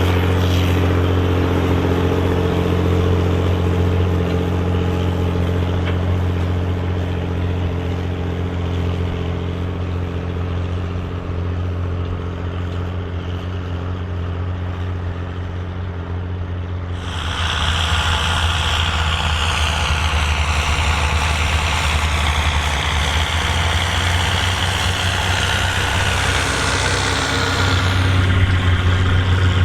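Volvo BM tractor diesel engine running steadily under ploughing load. About halfway through, the sound switches abruptly to a louder, brighter engine note with much more high-pitched noise, which drops back near the end.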